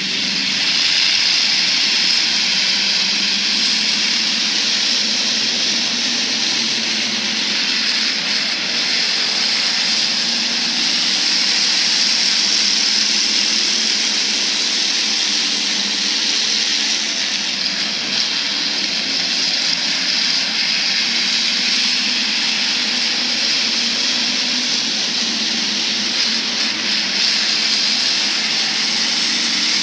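A field of hobby stock race cars running together on a dirt oval, their engines blending into a steady, loud drone with a hissing high edge and no single car standing out.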